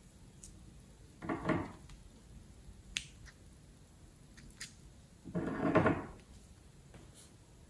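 Slime squelching and crackling as the filled plastic piping bag is squeezed, twice, about a second in and again near the six-second mark, with a few faint clicks between.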